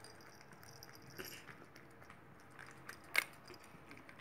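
Maine Coon cat eating wet food from a stainless steel bowl: faint chewing and lapping with soft clicks, and one sharper click about three seconds in.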